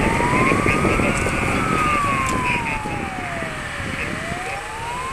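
Fire engine siren in a slow wail: its pitch climbs to a peak, falls slowly for a few seconds, and starts climbing again about four seconds in. A low rumble runs underneath.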